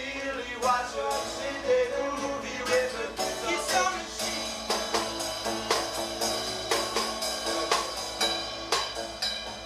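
Live acoustic band music: banjo and acoustic guitar played over a snare drum keeping a steady beat, with a voice singing through the first few seconds.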